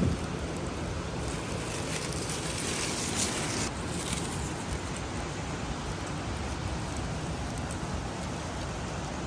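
Steady wind noise on the microphone outdoors. From about two seconds in, a brighter rustle of dry pine straw and leaves comes in and stops sharply just before four seconds, as a black racer crawls off through the litter.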